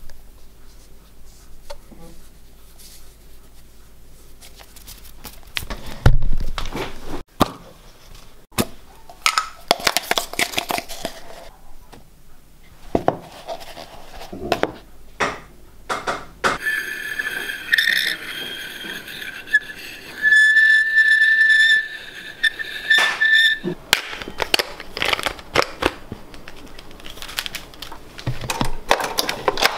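Scattered knocks and scraping of pancake batter being mixed by hand in a plastic jug, with a steady high tone lasting several seconds about halfway through.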